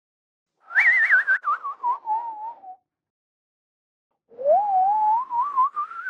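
Cartoon whistle sound effects: a warbling whistle gliding down in pitch, then after a short pause another warbling whistle gliding up.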